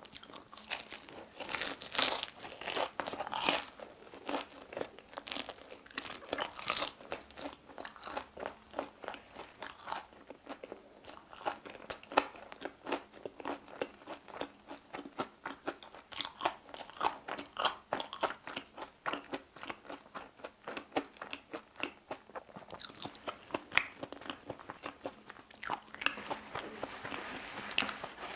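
Close-miked biting and chewing of a crispy, crumb-coated fried hot dog: a bite near the start, then many irregular crunches as it is chewed.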